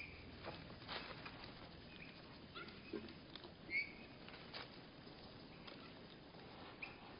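Birds at a seed feeder, slowed to one-third speed so their chirps come out lowered and drawn out. The chirps are faint, the loudest a little under four seconds in, with scattered sharp taps and clicks among them.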